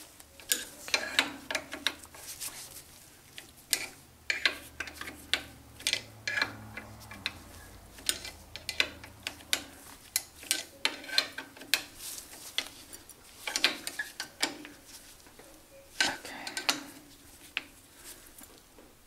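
Hand tool clinking and ticking against steel screws and the lathe's cross-slide as the screws are tightened: an irregular run of sharp metallic clicks in small clusters with short pauses.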